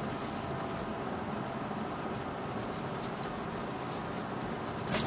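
Cabin noise of a 2007 Subaru Forester's flat-four boxer engine and tyres as it drives slowly over a snow-covered forest track: a steady rumble with a faint hum, a few light clicks, and one sharp knock near the end.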